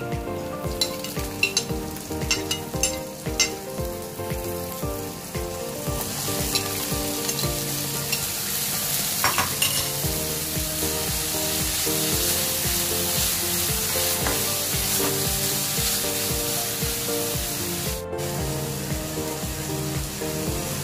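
Chopped carrots and broccoli sizzling as they fry in oil in a pan, stirred with a wooden spatula. Taps and clicks in the first few seconds as the vegetables go in, then a steady sizzle that grows louder from about six seconds in. Soft background music plays underneath.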